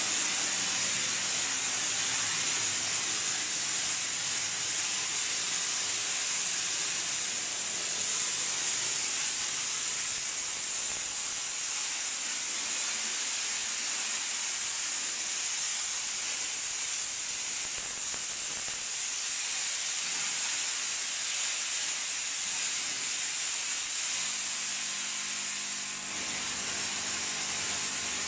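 Steam sanitizing machine jetting steam at 180 degrees, a steady high hiss. A low motor hum joins in near the end.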